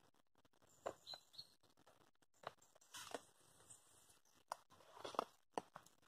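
Near silence: faint lakeside quiet with scattered small ticks and taps and a brief faint hiss about three seconds in.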